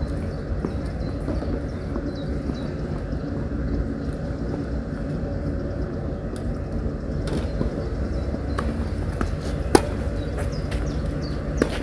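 Tennis ball struck by rackets: a sharp pop about ten seconds in, which is the loudest sound, and a second one near the end. Under them runs a steady low rumble of outdoor background noise.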